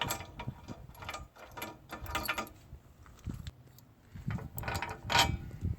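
The hitch's retaining bolt being unscrewed, with quick runs of small metallic clicks and rattles as it turns, then a pause and a second run of clicks near the end.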